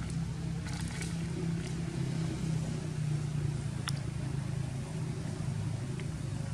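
A steady low engine hum, as of a motor vehicle running, with one sharp click about four seconds in.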